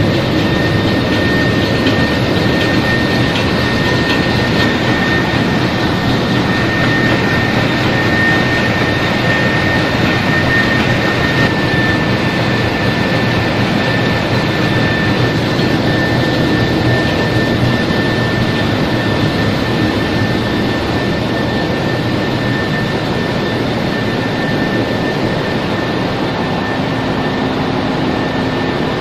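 Ship's engine room machinery running: a loud, steady mechanical noise with a thin high whine held over it.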